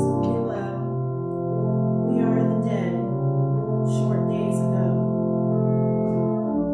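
Slow instrumental church prelude: long held chords, with new notes entering every second or so.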